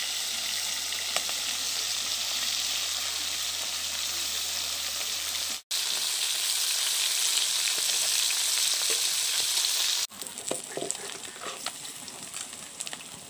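Small tangra catfish sizzling as they fry in oil in a kadhai, turned with a flat metal spatula. The sizzle cuts off abruptly twice, a little over halfway and again later. After the second break it is quieter, with scattered clicks.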